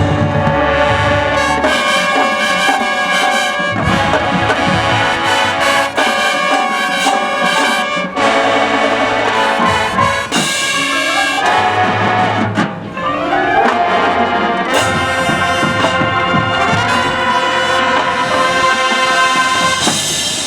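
A marching band playing full-ensemble music: trumpets and trombones hold loud chords, with drum hits cutting through.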